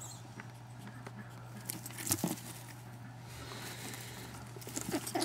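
Soft rustling and faint crackle of a rabbit nest of straw and pulled fur being handled, with a few small clicks, the sharpest about two seconds in. A steady low hum runs underneath.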